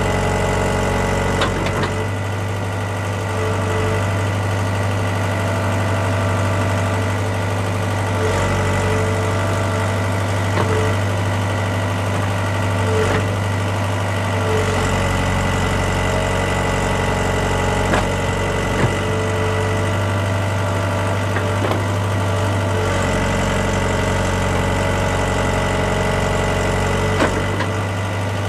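Farm tractor engine idling steadily, with a few light knocks now and then.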